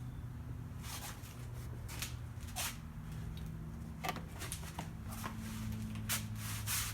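Handling noises: a string of short clicks and rustles, about eight or nine scattered irregularly from about a second in, over a low steady hum.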